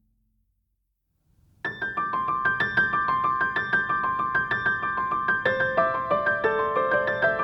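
Background music: a moment of silence, then a light piano tune of quick, evenly struck notes starts about a second and a half in.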